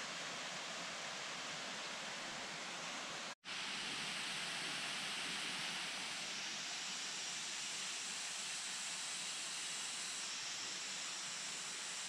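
Steady rushing of water falling over a waterfall, an even hiss with no rhythm, cutting out for an instant about a third of the way in before carrying on.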